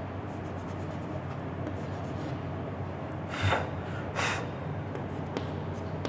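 Chalk on a blackboard as a diagram is drawn: light scratching and tapping, then two louder scraping strokes about three and a half and four seconds in. A steady low hum runs underneath.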